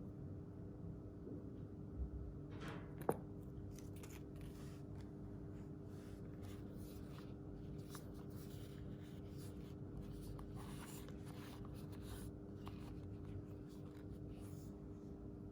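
Hands handling objects during an unboxing: light rustling and scraping, with a thump about two seconds in and a sharp click about a second later, over a steady hum.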